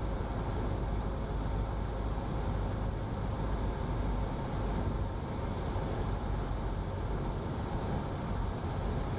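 Steady cockpit noise of a single-engine Cessna on final approach: its carbureted piston engine and propeller at reduced power, with airflow rush and a faint steady hum.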